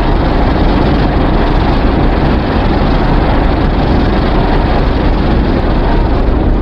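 Steady, loud rumbling noise with no clear pitch, one of a set of custom sound effects made for an original monster character.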